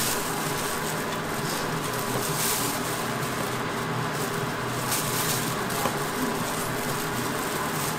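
Plastic bag of flour crinkling and rustling in short spells as a hand reaches in and pulls out flour-coated pieces of fish, over a steady low mechanical hum.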